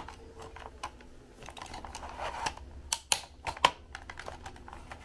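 Hard plastic parts of a Dyson canister vacuum being handled as the cord winder assembly is fitted back onto the HEPA filter housing: a scatter of sharp plastic clicks and taps, clustered and loudest a little past three seconds in.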